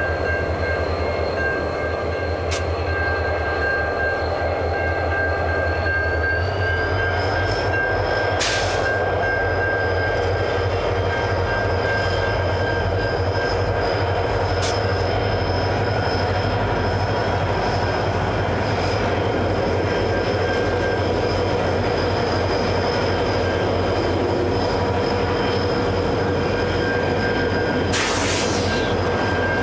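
Two diesel-electric freight locomotives, GWA ALF23 and ALF24, pass close by pulling a ballast train away from a crossing loop: a steady low engine throb under high-pitched whining and squealing tones that rise in pitch about six to eight seconds in and then hold. A steady high ringing tone, fitting a level-crossing warning bell, runs underneath, and two short sharp noises break through, one about eight seconds in and one near the end.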